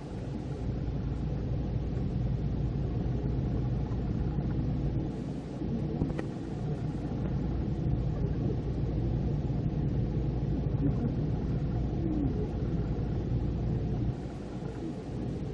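Passenger train running at speed, heard from inside the carriage: a steady rumble of wheels on rail with a constant hum. It eases briefly about five seconds in and again near the end.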